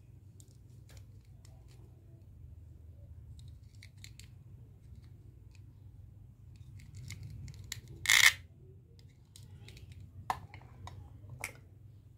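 Hollow plastic toy fruit pieces handled: light plastic clicks and rubbing, with one short, louder rasp about eight seconds in and a couple of sharper clicks near the end.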